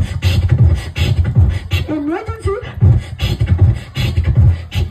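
Beatboxing into a microphone over a PA: a steady beat of deep bass thumps and sharp snare-like clicks, with a few sliding vocal tones mixed in.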